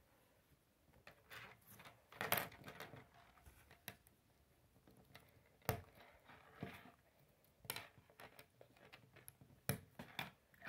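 Plastic K'nex rods and connectors being handled and fitted together on a wooden table: irregular light clicks and taps, the loudest cluster about two seconds in.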